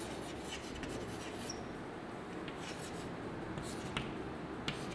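Chalk scratching on a blackboard as words are written, with a couple of sharp taps near the end.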